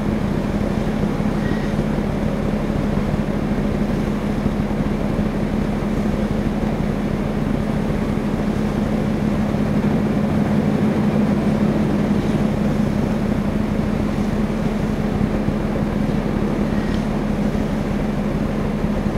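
A ferry's engines droning steadily, a low hum under an even wash of wind and water noise.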